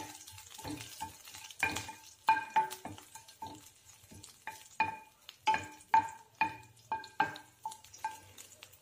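Wooden spatula stirring green chillies, curry leaves and mustard seeds frying in hot oil in a stainless steel pan while tempering a tadka. It knocks against the pan about twice a second, and the pan rings briefly at each knock over a light sizzle. The knocks thin out near the end.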